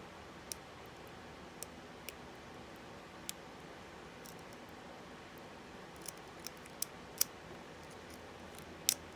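Small, sharp metallic clicks of a lock pick and tension wrench working in the keyway of an Abus 64TI 30mm padlock: a few spaced out at first, then coming closer together, the loudest near the end.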